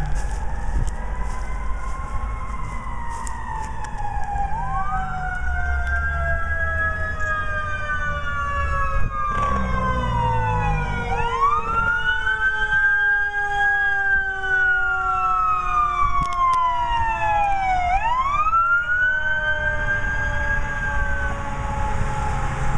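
Emergency vehicle sirens wailing, several at once: one climbs and falls slowly about every six to seven seconds while others slide gradually lower. A low rumble runs underneath.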